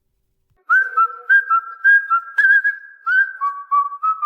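A whistled melody starting about a second in: a string of short, clear held notes stepping up and down in pitch, with slight wavers on some notes, dropping to lower notes in the second half.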